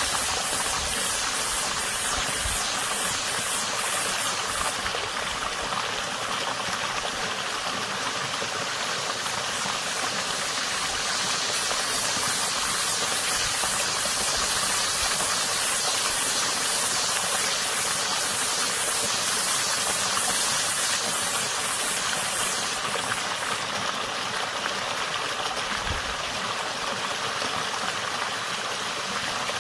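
Water running in a small creek, with a cicada's high buzzing song over it, strongest through the middle.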